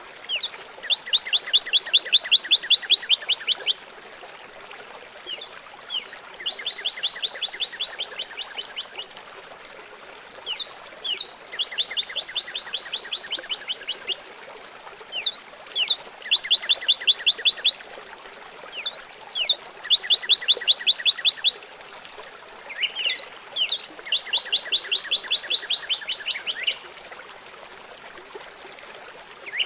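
A songbird singing the same song six times, a few seconds apart. Each song opens with a couple of short rising notes and runs into a fast, even trill of high notes lasting two to three seconds. Steady trickling water runs underneath.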